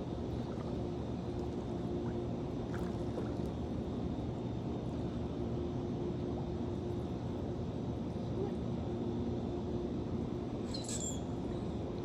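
A steady, low engine drone, with a brief click near the end.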